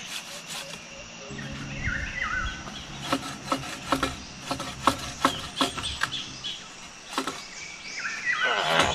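Hand bow saw cutting firewood: rasping saw strokes, then a run of sharp, irregular wooden clicks and knocks from about three seconds in. A bird chirps briefly now and then.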